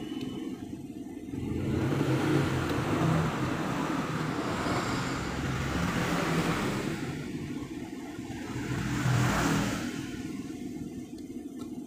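Motorcycle engine running, its revs rising and falling twice, about two seconds in and again about nine seconds in.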